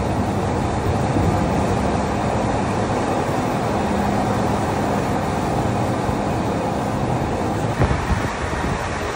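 Boat engine running steadily under the noise of water along the hull. Wind buffets the microphone with low thumps near the end.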